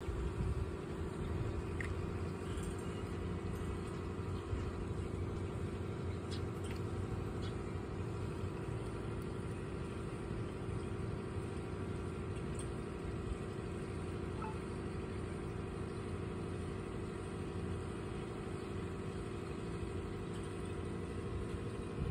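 Steady low hum of an aquarium pump running, with a few faint ticks.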